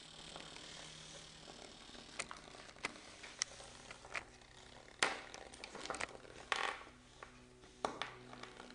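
Bristlebots buzzing with a faint, steady hum from their small vibration motors as they skitter on a wooden tabletop. Several sharp clicks and taps sound as a bot is handled and knocks against the table; the loudest comes about five seconds in.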